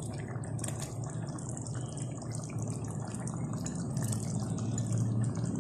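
Chicken and chickpea curry bubbling in a pan, with a steady run of small pops and crackles from the simmering gravy.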